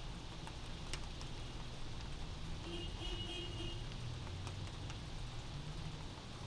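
Rain heard from inside a house: a steady patter with scattered drip ticks over a low rumble of city traffic. A short, faint pitched tone sounds about three seconds in.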